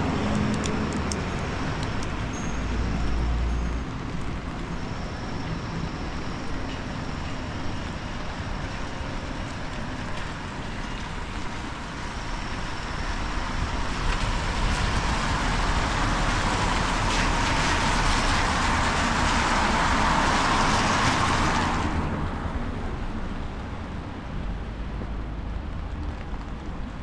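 Town street ambience on a wet, windy day: traffic on a wet road and wind rumbling on the microphone. About halfway through, a louder hiss builds for several seconds and then cuts off suddenly.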